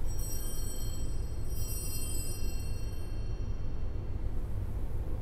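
Altar bell rung once at the elevation of the chalice, marking the consecration of the wine: a high ringing of several tones that starts suddenly and fades over a few seconds, over a steady low hum.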